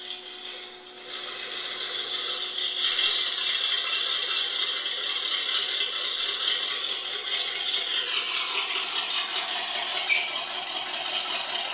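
Steady mechanical rattling that builds up about a second in and keeps going, with a brief sharper click about ten seconds in.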